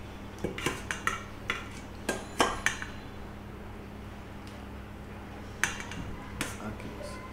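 Serving spoon clinking and scraping against stainless steel dishes as curry is ladled from a bowl onto a plate: a run of sharp clinks in the first three seconds, then a few more, about a second apart, near the end.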